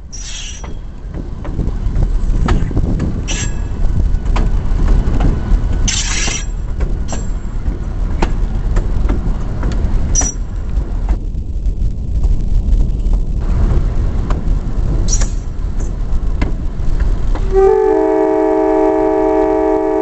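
EMD GP9 diesel locomotive rolling along the track: a heavy, steady low rumble of engine and wheels with occasional sharp clanks. Near the end its air horn sounds a steady chord of several notes for about two seconds, a warning for the road crossing ahead.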